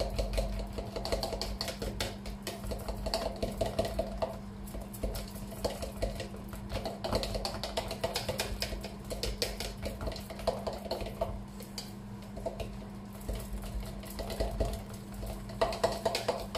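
A fork beating raw egg, grated Parmesan and black pepper into a thick carbonara sauce in a bowl: fast clicking of the fork against the bowl, with a couple of brief pauses.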